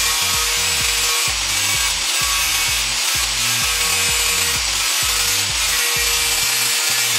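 Angle grinder with a thin disc grinding the end of a metal rod held in a vise, a steady, continuous grinding noise as the disc bites into the metal.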